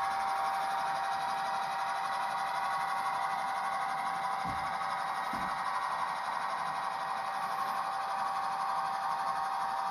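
Model railway grain train of hopper wagons and covered vans running past on the track: a steady whirring rumble of the small wheels on the rails, with a constant whine throughout and two soft knocks about halfway through.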